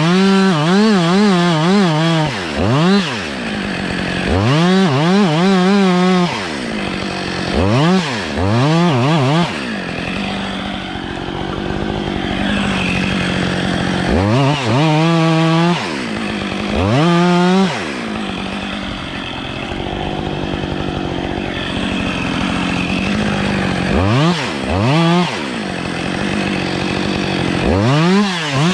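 Gas chainsaw cutting the face cut into a small tree's trunk. The throttle opens in repeated short bursts of a second or two, each rising to full revs and falling back to a lower running speed in between.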